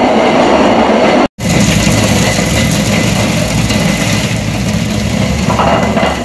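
Hand-turned stone quern (chakki) grinding chickpeas and lentils: a continuous loud rough grinding rumble of the upper stone turning on the lower one, with a brief break about a second in.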